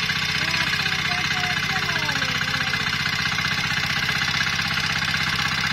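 Mini walk-behind power tiller's small engine running steadily with an even, fast putter as the machine works the soil.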